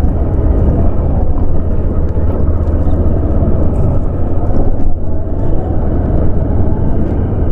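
Loud, steady low rumble of a motorcycle on the move, engine and wind noise on the microphone mixed together.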